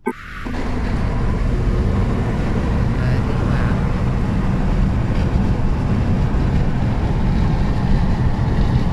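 Steady road and wind noise of a car travelling at motorway speed, heard from the car. A click right at the start, then the noise rises within the first half second to an even level.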